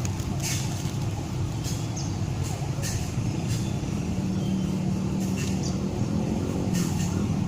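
Steady rumble of passing road traffic, with a vehicle engine's low drone setting in about four seconds in, and scattered short clicks.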